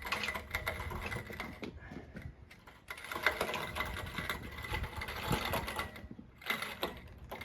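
A tool turning a bolt with rapid, even mechanical clicking, in two long runs of a few seconds each and a shorter run near the end.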